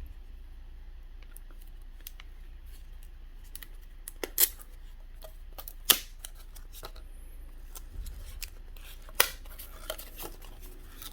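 Pokémon trading cards being handled: scattered sharp clicks and light rustling, the loudest clicks about four, six and nine seconds in, over a low steady hum.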